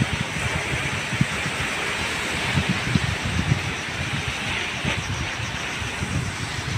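Wind buffeting the microphone in gusts, over a steady hiss of surf washing onto a rocky shore.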